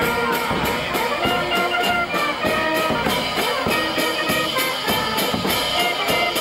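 Band music with a quick, steady drum beat, about three beats a second, under held melody notes, of the kind played for the dancing of the giant figures.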